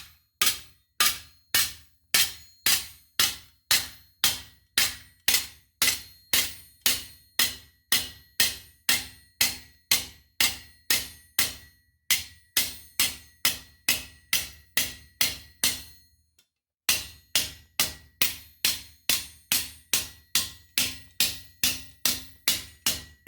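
Leather mallet striking a warped steel knee-armour wing on an anvil, steady blows about two a second, each with a short metallic ring. The blows stop briefly about sixteen seconds in, then resume. The mallet is knocking the distorted plate back flat against the anvil face.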